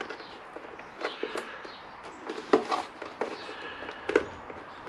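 Scattered clicks and knocks of a hard plastic airbox being handled while a new rubber fitting is pushed and worked into one of its holes. There are half a dozen sharp taps, the loudest about two and a half seconds in.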